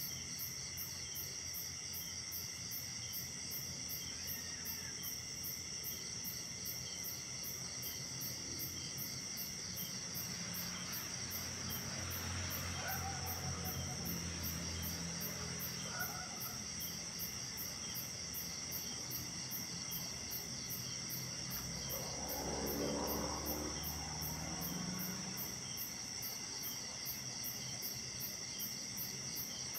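Night chorus of crickets and other insects trilling steadily, one of them pulsing in a fast, even rhythm of about three pulses a second. A faint low rumble rises and fades twice beneath it, about a third of the way in and again past the middle.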